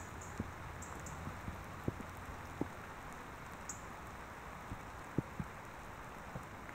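Raindrops striking an external camera microphone: irregular sharp clicks, a few stronger ones about two and five seconds in, over a steady hiss of rain.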